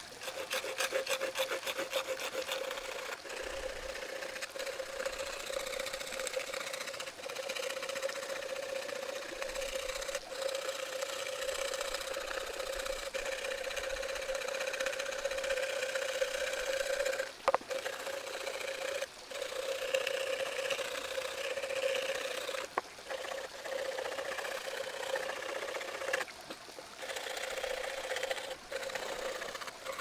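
The wood saw of a Victorinox Huntsman Swiss Army knife, worked like a file across a raw cow horn: continuous rapid rasping strokes that flatten the horn's bumps, with a few brief pauses.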